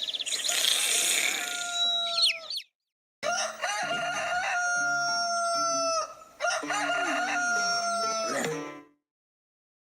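Rooster crowing: three long held crows, one after another with short silent breaks between them.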